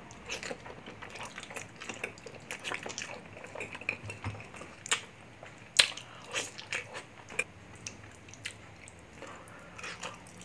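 A man biting and chewing kare-kare, a soft peanut-sauce stew of tripe, pork and vegetables, eaten by hand: a steady run of short mouth clicks and smacks, the loudest about six seconds in.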